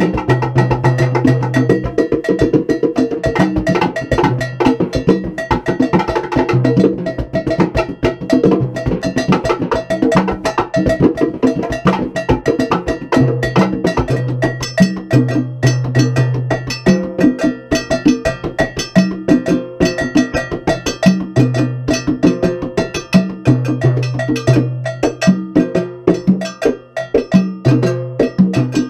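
Live Latin percussion playing a fast, dense rhythm: a cowbell struck with sticks alongside cymbal and drum strokes, over hand-played congas. Low held notes come and go underneath throughout.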